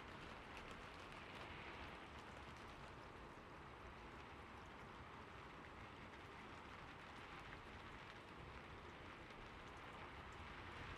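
Faint, steady patter and splash of falling water, an even wash of fine drops with no pauses.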